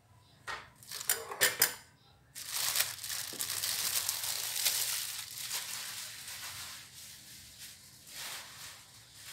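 A few quick knocks, then a sudden loud sizzle as food goes into hot oil in a cooking pot, fading slowly over several seconds.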